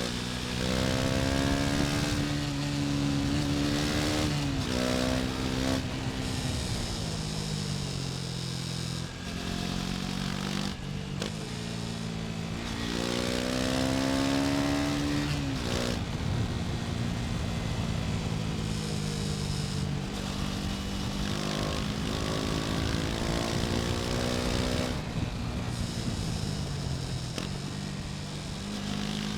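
KTM Duke 250's single-cylinder engine pulling under way. Its pitch climbs as the revs build, then drops sharply at each gear change, a few seconds in and again about halfway. Wind rushes steadily over the microphone.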